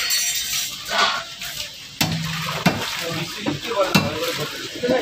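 Large katla fish being cut on an upright curved blade fixed in a wooden block: wet scraping and slicing, with a few sharp knocks about two, two and a half and four seconds in.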